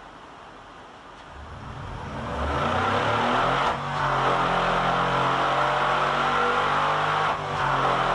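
Mercedes-AMG 5.5-litre V8 running on an engine test bench: its sound rises over about two seconds, then holds steady at high load, the exhaust glowing red-hot. The level dips briefly twice, about four seconds in and near the end.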